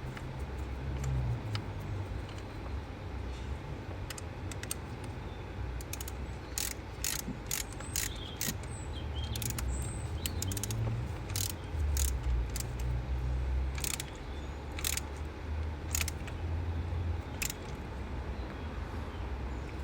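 Ratchet wrench clicking in short runs as a new spark plug is screwed into the engine, over a steady low rumble.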